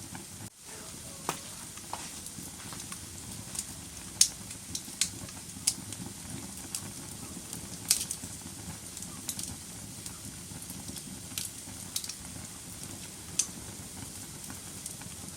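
Wood fire burning in a fireplace: a steady low rush of flame with irregular sharp crackles and pops, the loudest about four and eight seconds in.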